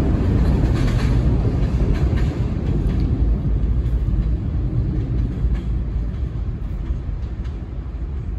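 New York City subway A train pulling out into the tunnel, its low rumble slowly fading as it goes, with occasional clicks of the wheels on the rails.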